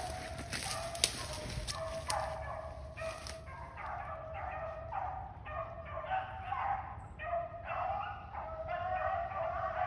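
A pack of rabbit hounds baying on a running rabbit, short calls coming about two a second from a few seconds in, over a rustling noise in the first few seconds.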